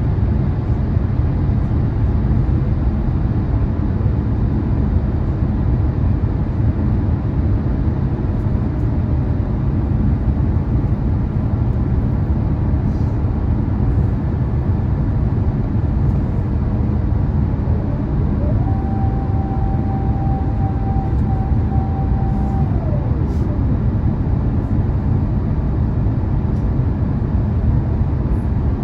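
Steady cabin roar inside an Airbus A350-1000 on approach: airflow and its Rolls-Royce Trent XWB engines. About two-thirds of the way in, a mechanical whine rises, holds for a few seconds and winds down.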